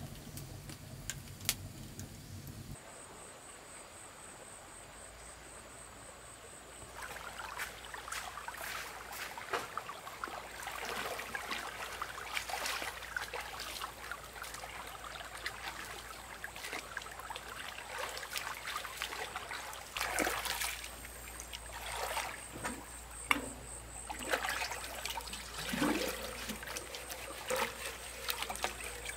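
Water splashing and trickling in many small irregular splashes, as of hands or objects moving in shallow water, starting about seven seconds in after a quieter stretch.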